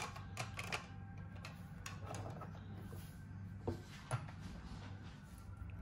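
Light clicks and taps of small plastic toy pieces being handled, a quick run of them in the first second and two sharper knocks a little before the four-second mark, over a low steady hum.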